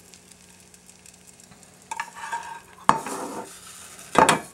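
Metal slotted spatula scraping and knocking against a hot stainless frying pan while lifting out a sea bass fillet, with short bursts of sizzling. Quiet for the first two seconds, then a scrape, a sharp knock about three seconds in, and another loud scrape near the end.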